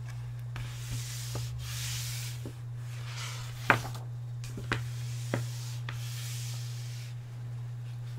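Paper pages of a book being turned close to a binaural microphone: two soft sliding rustles, with a few sharp paper crackles between them, the loudest about three and a half seconds in.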